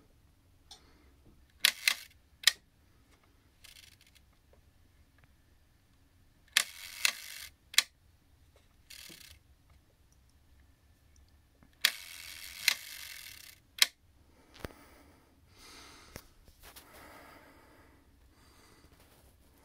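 An Ilex No. 5 Universal Synchro leaf shutter on a Kodak 14-inch f/6.3 Commercial Ektar lens, fired three times at slow speeds. Each firing is a sharp click as the blades open, the buzz of the escapement timer, and a click as they close, and each buzz lasts longer than the last. Quieter clicks come between the firings.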